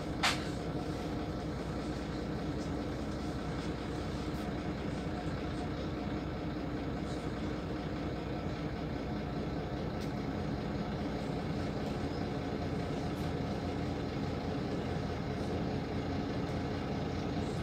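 Van Hool AG300 bus's diesel engine idling steadily while the bus stands still, heard from inside the passenger cabin. A single sharp click comes about a third of a second in.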